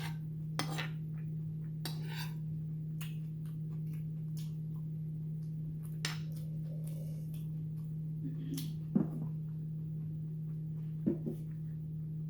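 Cutlery clicking and clinking against a bowl during eating, in scattered light taps with two sharper clinks about nine and eleven seconds in, over a steady low electrical hum.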